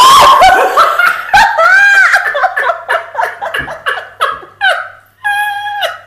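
A sudden loud outburst of laughter from a man and a woman, breaking into repeated laughs that fade over several seconds. In the last second a held, brass-like musical tone starts.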